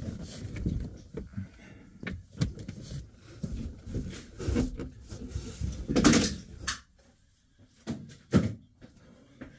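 Handling noises of work on the rear seat-back rubber mat: irregular scuffs, rustles and knocks, the loudest a scrape about six seconds in, then a couple of short knocks near the end.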